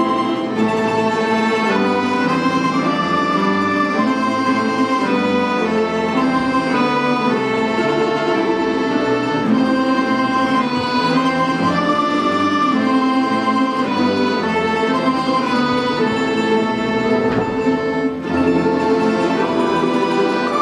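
Orchestra of Russian folk instruments (domras, balalaikas and bayans) playing a lively dance piece in full ensemble, with sustained melody notes over a steady accompaniment. There is a brief drop in level near the end before the full sound resumes.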